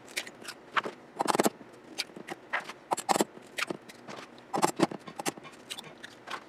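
Eggs being cracked one after another on the rim of a stainless steel bowl: a string of short, sharp taps and shell cracks, with the shells pulled apart and the egg carton handled in between.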